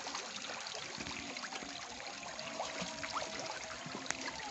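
River water trickling and lapping around floating fish cages, with many small scattered splashes and clicks.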